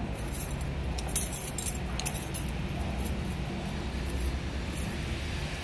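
Light metallic jingling and clinking, a scatter of short sharp jingles over a steady low hum.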